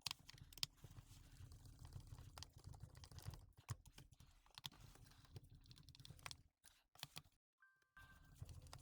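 Faint, irregular light clicks and taps of small parts of a cordless impact wrench being handled and fitted back together. The sound drops to dead silence for about half a second near the end.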